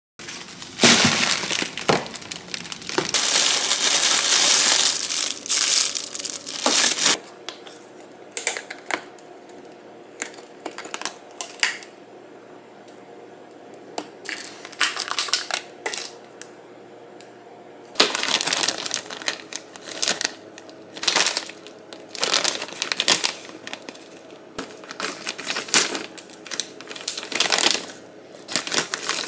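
Food packaging crinkling and rustling as it is handled: a plastic bag of noodles, a plastic deli container and a large bag of frozen dumplings. The crinkling is loud for the first several seconds, gives way to quieter scattered clicks and taps, and picks up again in the last third.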